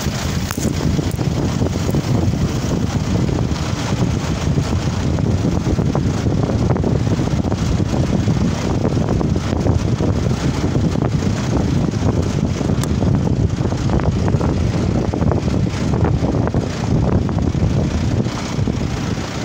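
Wind buffeting the phone's microphone, a loud, uneven rumble that flutters in gusts.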